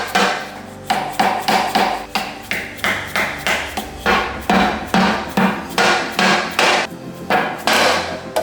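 A hammer striking metal repeatedly, two to three blows a second, each with a short metallic ring.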